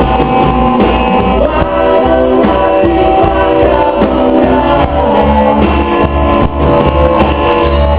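A live rock band playing a song in a large room: electric guitar, bass and drums with a sung vocal line, loud and steady.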